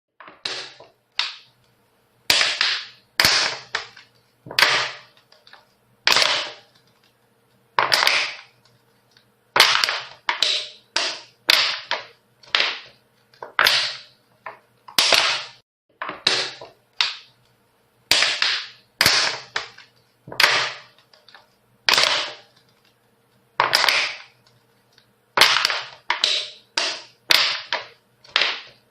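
Ice hockey sounds on the ice: a long series of sharp, hissing strikes, each cut off quickly, coming roughly once a second at uneven spacing, some in quick pairs or triplets, over a faint steady low hum.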